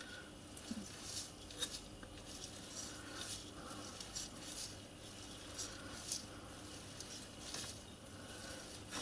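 Faint scattered clicks and soft handling noise of a small die holder being turned by hand to start an 8BA thread on a tiny screw held in the lathe chuck.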